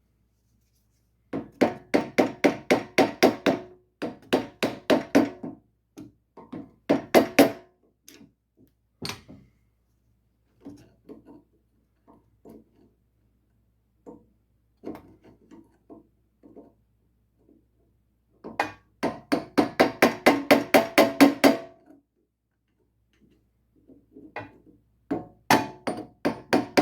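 Rapid hammer taps on metal with a ringing tone, in bursts of one to three seconds at several blows a second with pauses between: a shaft being driven through the motorcycle's swingarm pivot before its nut goes on.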